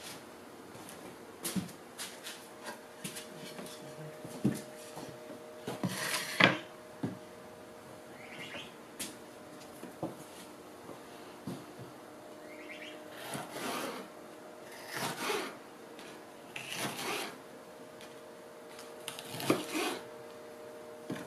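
Handling noises on a wooden cutting board: scattered knocks and clicks, then several short scraping strokes of a knife cutting a small yellow pepper on the board. A faint steady hum runs underneath.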